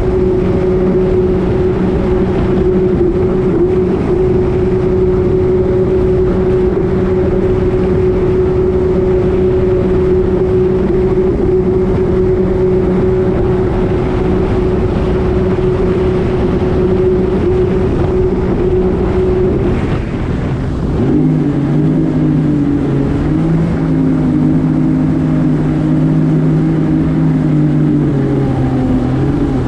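Jet ski engine running at a steady high speed over a constant rush of noise. About twenty seconds in the engine note drops and settles at a lower, steady speed, as the throttle is eased off.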